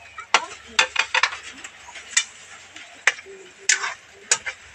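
A metal spoon clinking and scraping against a steel wok as squash and okra in coconut milk are stirred: a series of irregular sharp clinks.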